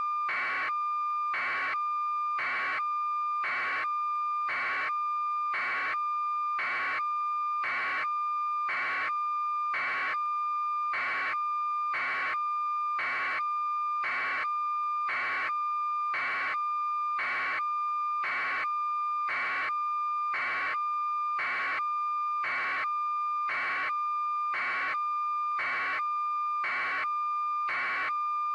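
Steady high electronic tone with a short beep pulsing about once a second, mechanical in its regularity.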